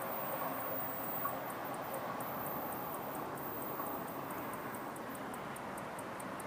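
Distant running noise of a Stadler GTW 2/6 diesel multiple unit moving away, a steady rumble that slowly fades. A regular high-pitched ticking, about four a second, sounds over it from about a second and a half in.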